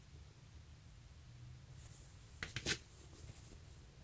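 Quiet handling of a jumbo foam papaya squishy, with three short soft clicks or rustles about two and a half seconds in as fingers squeeze it.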